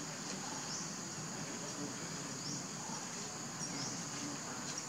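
A steady high-pitched insect chorus, with a few short rising chirps over faint background noise.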